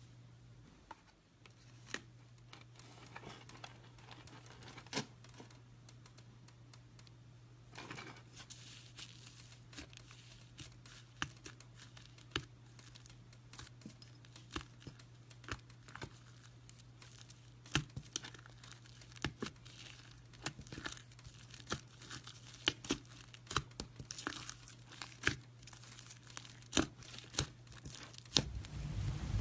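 Slime being squeezed and stretched by hand, giving off irregular sharp crackles and pops of trapped air that come more often after the first several seconds. A steady low electrical hum sits underneath.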